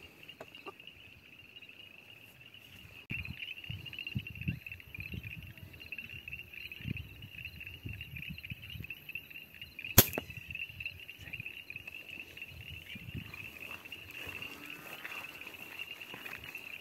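A single sharp shot from an R2800s bullpup air rifle about ten seconds in, fired at a vizcacha picked out by the spotlight. Insects chirr steadily throughout.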